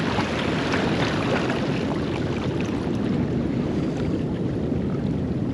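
Steady wash of ocean surf at the tide pools, with wind buffeting the microphone.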